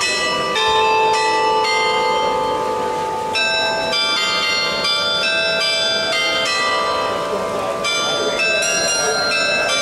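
The bells of the Plaza Mayor carillon clock in Ciudad Real play a tune on the hour. Struck notes follow one another about every half second to second, each ringing on into the next.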